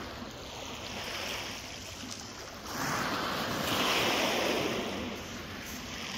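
Surf washing on the shore, with one larger wave swelling up about halfway through and then ebbing away.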